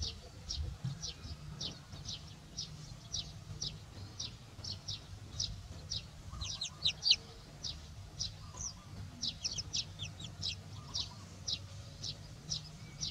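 Young chicks peeping: a steady run of short, high, falling peeps, about two a second, with a quicker flurry of peeps about halfway through.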